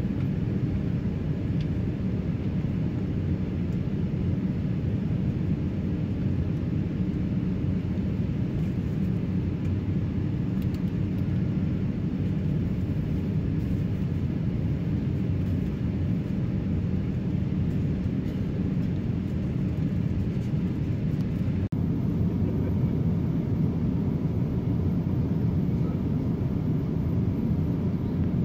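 Steady low rumble inside an Airbus A350-900's passenger cabin in flight: Rolls-Royce Trent XWB engine and airflow noise. The tone shifts slightly about two-thirds of the way through.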